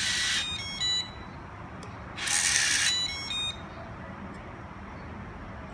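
Electronic RFID cabinet lock operated twice, about two seconds apart. Each time there is a short whir from the lock's mechanism, then a quick run of electronic beep tones.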